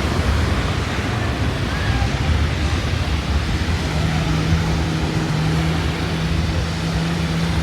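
Sea surf and wind buffeting the microphone, with a steady motor hum coming in about four seconds in.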